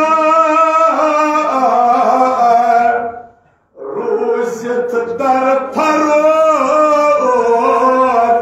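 A man's voice chanting a Kashmiri marsiya (elegy for Imam Hussain) in long, held melodic lines, pausing briefly for breath about three seconds in.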